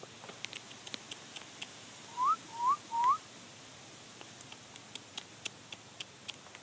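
Three short rising whistled notes in quick succession, very close by, over scattered faint ticks.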